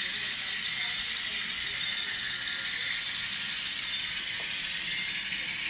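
Model train running along the track: the geared locomotive motors and metal wheels on the rails give a steady, even mechanical running noise, mostly high-pitched.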